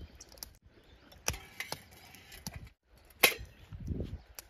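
Scattered clicks and taps from handling small metal camp gear (a canister, a steel cup and a percolator pot), with one sharp clink a little over three seconds in.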